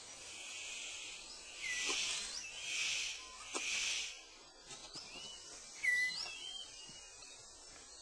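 Rainforest ambience: a steady high insect buzz and short slurred whistles from a bird about once a second, the loudest near six seconds in. Three brief rushing hisses come about two to four seconds in.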